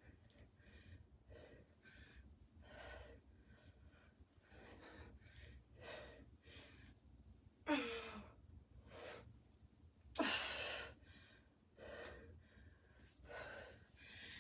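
A woman's heavy breathing while doing kettlebell goblet squats: a steady run of short, sharp breaths in and out. Two much louder, forceful exhales come about eight and ten seconds in, the first with a little voice in it.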